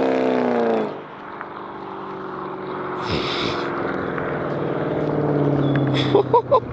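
Chrysler 300 SRT8's 6.1 L Hemi V8 on a cat-delete exhaust with long-tube headers: the exhaust note is loud at first, then the revs fall away about a second in and it drops much quieter, settling into a low steady drone that slowly builds. A few short sharp sounds come near the end.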